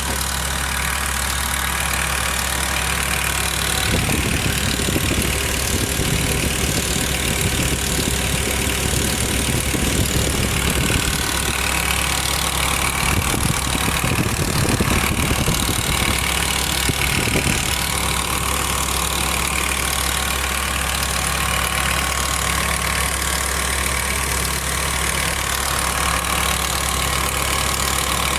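BMW E60 M5's S85 V10 engine idling steadily with a ticking noise. It grows busier and a little louder for a stretch in the middle.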